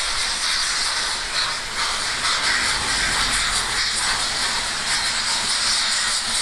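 BR Standard Class 9F 2-10-0 steam locomotive 92214 working hard as it pulls away from the station: a steady hiss of steam and exhaust with faint, uneven exhaust beats.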